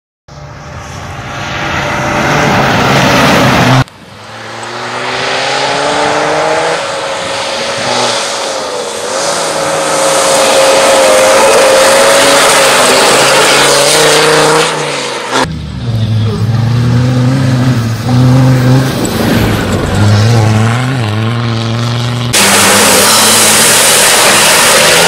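Off-road race car's engine revving and accelerating hard on a dirt course, its pitch rising and falling through the gears. Several shots are edited together, so the sound cuts abruptly about four, fifteen and twenty-two seconds in.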